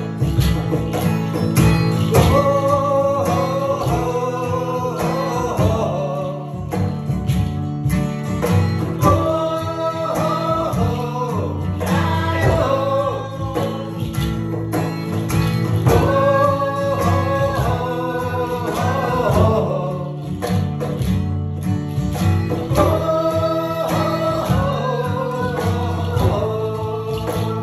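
Live acoustic folk band: a steel-string acoustic guitar strummed over cajon and frame-drum beats, with sung phrases of about four seconds coming back roughly every seven seconds.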